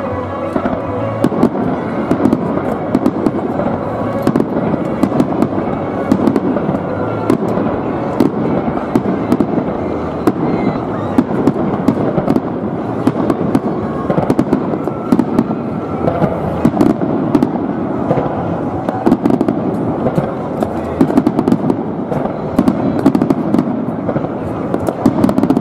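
Fireworks display with aerial shells bursting one after another: continuous bangs and crackling, with sharp cracks all the way through.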